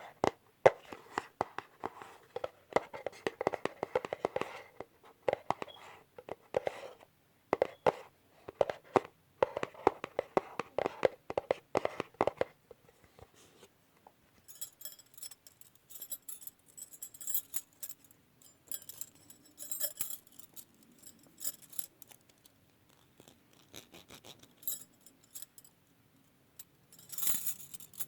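Rapid, dense tapping on a small jewelry box for about twelve seconds. After a short pause comes scattered light, high-pitched metallic clinking and jingling of a bracelet.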